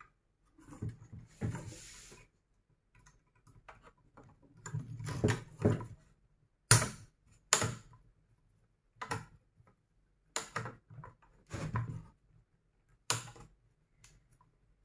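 A small hand tool working on the jammed metal gear mechanism of a cold spark machine. Soft scraping and handling noises come first, then a string of sharp clicks and knocks about once a second from the middle on, as the stuck fastener is worked loose.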